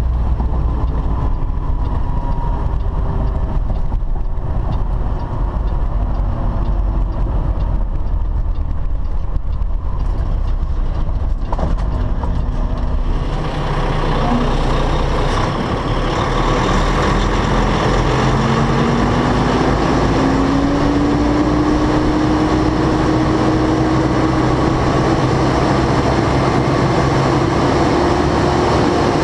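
Semi truck's diesel engine and road noise while driving. About halfway through, the sound turns abruptly fuller and brighter, and an engine note then climbs slowly as the truck pulls.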